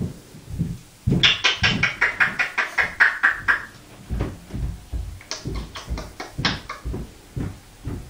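African grey parrot mimicking a dog's bark: a fast run of short, sharp barks starting about a second in, then softer, scattered ones.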